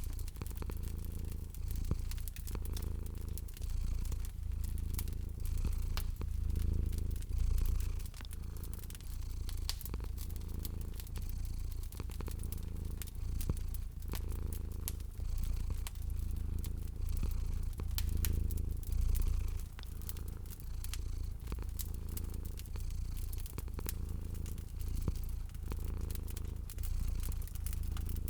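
A cat purring, a low hum that swells and fades with each breath about once a second, under a wood fire crackling with frequent sharp pops.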